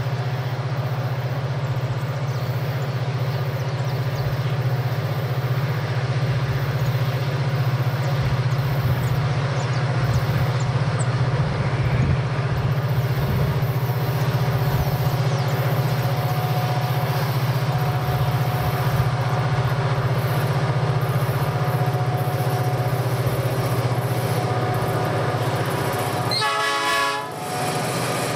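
EMD GT26MC diesel-electric locomotives with two-stroke engines hauling a freight train, running with a steady low drone as the train approaches and passes. The sound dips briefly about a second before the end.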